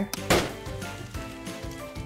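A light switch flicked on: one short click about a third of a second in, over quiet background music.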